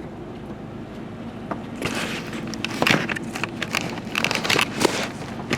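Rustling and scattered light clicks of things being handled, starting about two seconds in, over a steady low hum.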